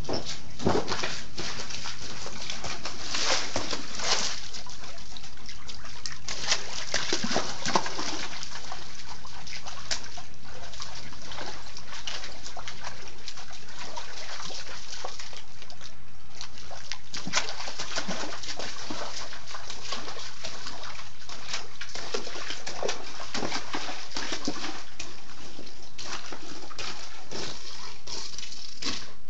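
A dog splashing in shallow standing water, pawing and nosing at a rock on the bottom, in irregular bursts of splashes.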